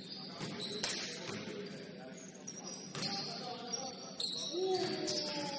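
Basketball game on a gym court: a few sharp thuds of the ball, about a second in, three seconds in and five seconds in, with high squeaks of sneakers on the hardwood and players' voices.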